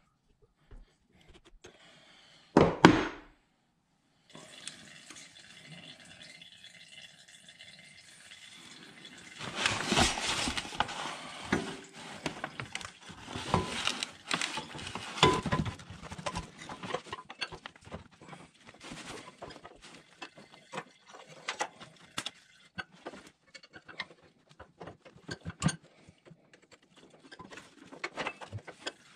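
Irregular metallic clinks, knocks and scrapes of hand tools and pump parts being handled as a hydraulic drive pump is fitted by hand, with one sharp clatter about three seconds in.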